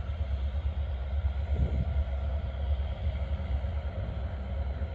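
Diesel train approaching from far down the line: a faint steady drone under a continuous low rumble.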